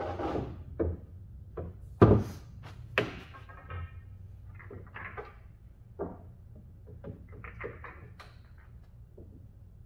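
Billiard balls clacking and knocking as they are taken from the pockets and set down on the table: a string of sharp clacks and thuds, the loudest about two seconds in.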